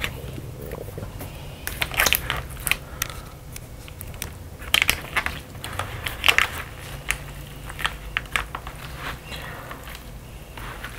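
Chopsticks stirring and lifting buckwheat noodles in a plastic takeout container, giving irregular clicks and crackles as they knock the container and break up the seaweed topping. Clusters of these come about 2, 5 and 6 seconds in, over a steady low room hum.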